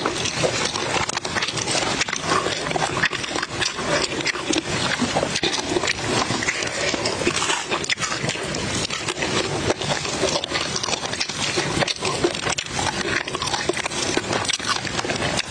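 Close-up eating sounds: crunchy chewing and the crackle of charcoal-grilled river fish being picked apart with the fingers, a dense run of sharp clicks and crackles without pause.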